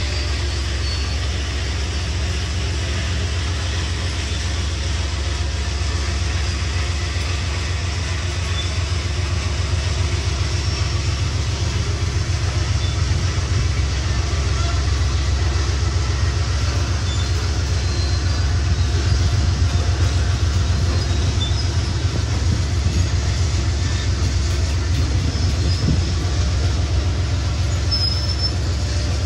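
Gravel train led by an Iowa Interstate diesel locomotive moving along the track: a steady low rumble of locomotive and rail cars, a little louder around the middle.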